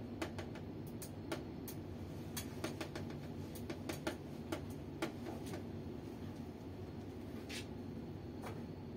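Irregular light clicks and taps of hand work with screws and a screwdriver at the base of a laser printer, over a steady low room hum.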